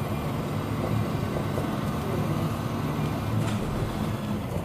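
Prusa i3 3D printer running a print: its stepper motors hum with a low, wavering pitch over a steady noise from its fans.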